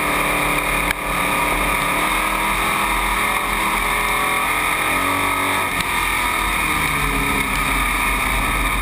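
Dirt-track race car's engine running loudly at speed, heard from inside the cockpit along with road and wind noise. There is a brief dip in the sound about a second in.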